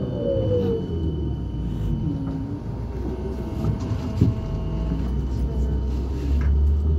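Trolza 5275.03 Optima trolleybus heard from inside the cabin: its electric traction drive whines, the pitch falling over the first second, under a steady low running rumble. A short knock comes about four seconds in.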